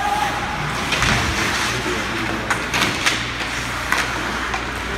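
Ice hockey play in a rink: skates scraping the ice and several sharp clacks of sticks and puck, with a heavier thud about a second in, over a steady low hum.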